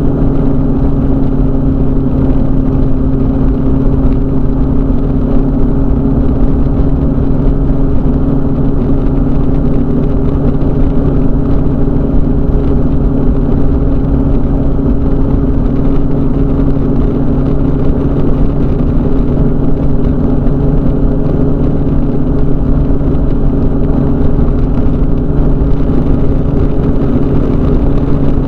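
Ultralight trike's engine and pusher propeller running at a steady cruise power in flight, heard from on board: a loud, unchanging drone with a steady low hum.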